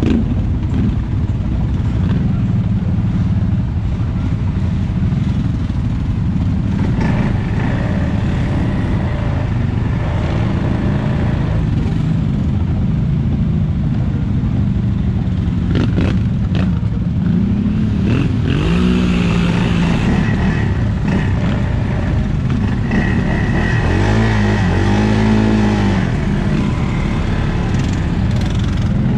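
Off-road vehicle engine running steadily while riding, revving up and back down twice in the second half.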